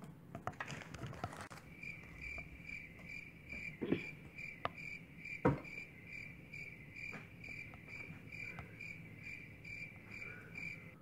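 Cricket chirping in an even rhythm, about three chirps a second, starting about two seconds in. Rustling comes first, and two sharp knocks land at about four and five and a half seconds, the second the loudest sound.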